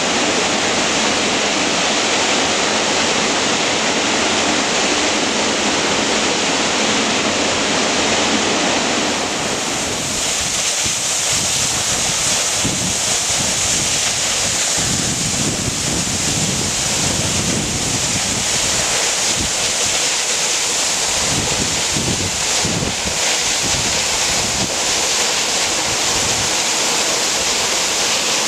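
Waterfall: a steady, loud rush of falling water. From about ten seconds in, gusts of wind buffet the microphone with irregular low rumbles.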